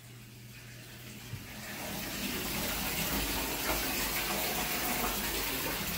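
Bathtub filling from the tap: a steady rush of running water that grows louder about a second and a half in, then holds.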